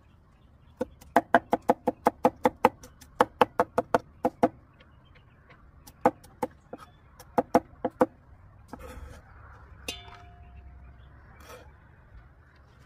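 Cleaver chopping garlic on a round wooden chopping block: a quick run of sharp knocks, about five a second, a short pause, then a few more strikes.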